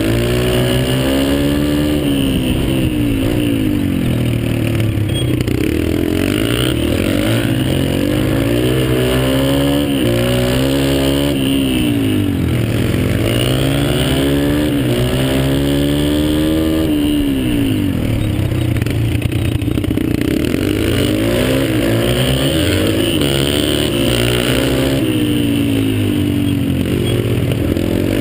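Dirt bike engine heard close up from the bike itself, revving up and dropping back again and again as the rider accelerates, shifts and rolls off through the turns.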